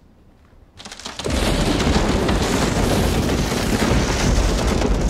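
Thunder: a clap breaks about a second in and goes on as a loud, steady rumble.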